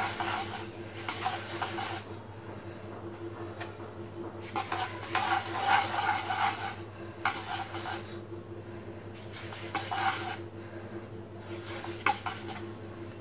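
A hand rubbing and sweeping across a wooden chopping board in several separate strokes, ending with a light knock, over a steady low hum.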